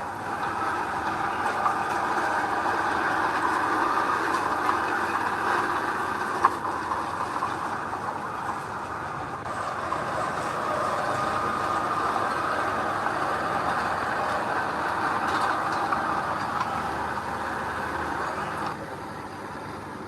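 Heavy earthmoving machinery running steadily, with a few brief clanks.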